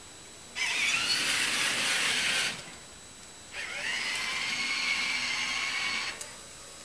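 Electric motor of a robotic snow shovel whining in two spells of about two seconds each, with a pause between; the second spell rises in pitch as it spins up, and each cuts off suddenly.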